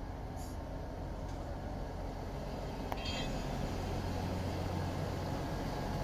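Class 158 diesel multiple unit's underfloor diesel engines running with a steady low drone as the train pulls away from the platform, growing a little louder in the second half. A single click and a brief high squeal come about three seconds in.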